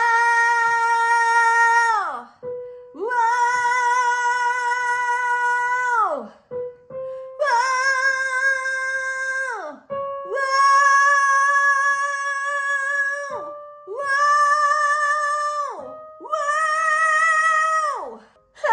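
A high singing voice holding six long notes with vibrato, each two to three seconds long and ending in a downward slide, the pitch edging a little higher from note to note.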